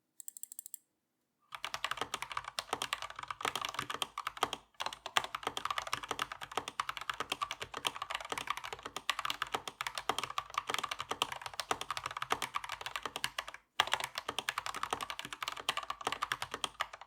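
Typing sound test on an Akko 5108S full-size mechanical keyboard with Akko CS Crystal linear switches and PBT JDA-profile keycaps. A fast, dense run of keystrokes starts about a second and a half in and stops briefly twice.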